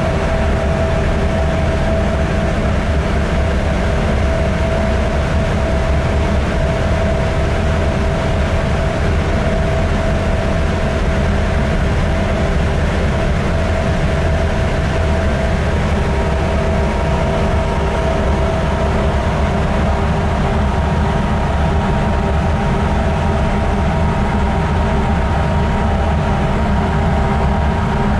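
Hyundai-built diesel engine of a container ship running steadily: a loud, even low rumble with a constant whine above it.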